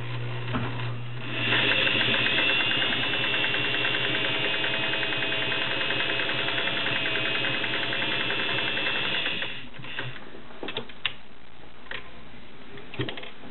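Singer 401A Slant-O-Matic sewing machine stitching a decorative domino-like pattern, running steadily for about eight seconds and then stopping. A few sharp clicks follow.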